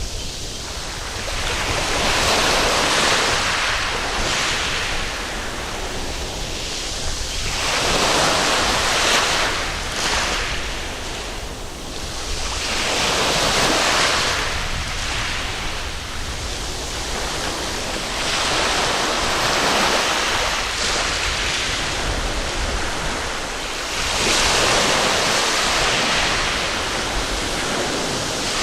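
Waves breaking and washing up a sandy beach, each one swelling and falling away, a new wave about every five to six seconds.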